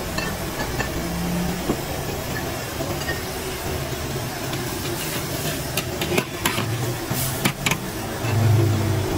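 Steady rushing of a gas wok burner under noodles simmering in broth, with several sharp clicks a little after halfway and a low hum swelling near the end.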